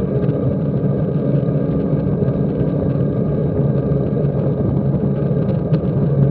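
Background music: a sustained ambient synthesizer drone with long held tones and no beat.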